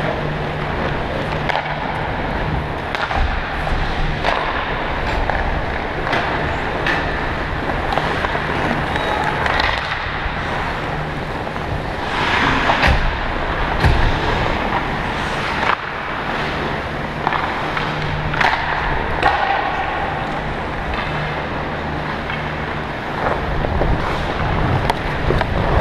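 Ice hockey skate blades scraping and carving on the ice, heard close up from a skating player, over a steady low hum of the indoor arena. A few sharp clacks of sticks and puck stand out, mostly around the middle.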